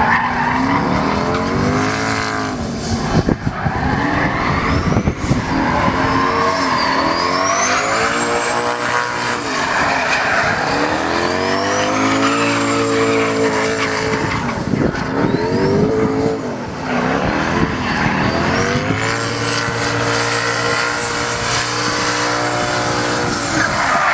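Drift car engine revving hard, its pitch climbing and falling in several long sweeps, over the continuous squeal and scrub of tyres sliding sideways. A thin, high whine glides up and holds during several of the slides.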